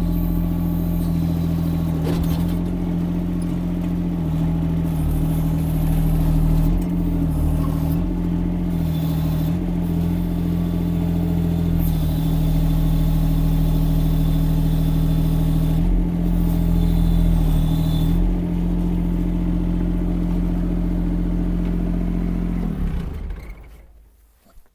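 Yanmar diesel engine of a Kymron XH20D mini excavator running steadily under hydraulic load while lifting a heavy log, its pitch dipping briefly several times as the load comes on. The sound falls away quickly near the end.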